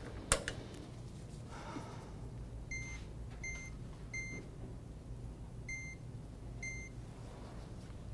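A sharp knock just after the start, then five short, high electronic beeps from a wall oven's keypad as its keys are pressed to set a two-minute timer.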